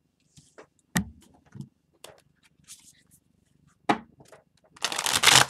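A tarot deck being shuffled by hand: a sharp tap about a second in and another just before four seconds, then a half-second riffle of the cards near the end, the loudest sound.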